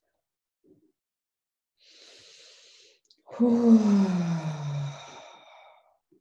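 A woman breathes in softly, then lets out a long, breathy voiced sigh that falls in pitch and fades away.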